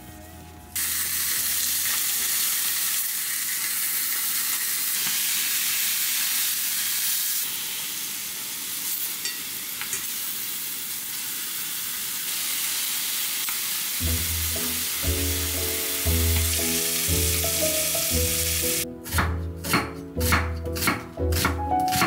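Beef short ribs (LA galbi) sizzling steadily as they fry in oil in a stainless steel pan; the sizzle starts suddenly about a second in. Background music comes in partway through, and near the end a knife slices an onion on a wooden cutting board in a quick run of chops, about three a second.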